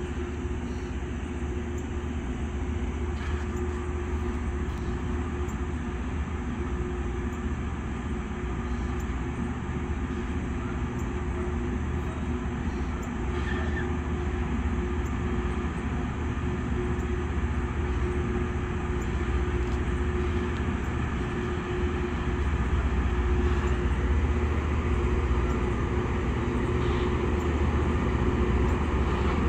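Loram rail grinder train approaching along the track: a steady mechanical rumble with a low drone and a steady hum, growing louder as it comes closer.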